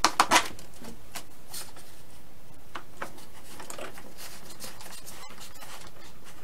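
Three sharp clicks near the start, then faint scattered ticks: a small bolt and nut being fitted and snugged up with a small hand tool at the rudder of a foam RC plane.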